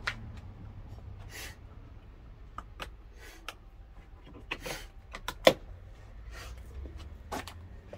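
Scattered clicks, knocks and rustling of tools and parts being handled, the sharpest click about five and a half seconds in, over a low steady hum.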